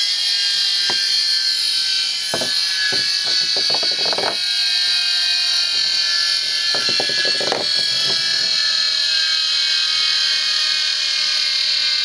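Tesla turbine made from hard-drive platters spinning at high speed, a steady high-pitched whine with hiss. Several short knocks and clicks come as it is handled on the bench.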